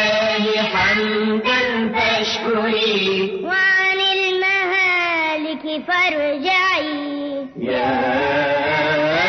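Chanted singing of an Arabic religious poem, a wavering, ornamented vocal melody, with a short break about seven and a half seconds in.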